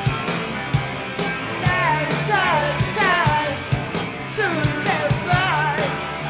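A live rock band playing: a woman sings with swooping, falling vocal lines over a steady drum beat, bass and electric guitar.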